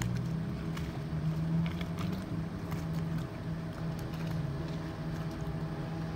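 Speedboat engine running at speed, a steady low hum.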